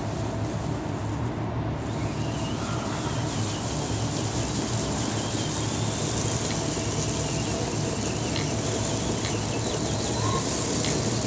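Steady whine of an RC crawler's small electric motor and gearbox, with scattered small clicks of loose rocks under its tyres. Faint bird chirps are heard now and then.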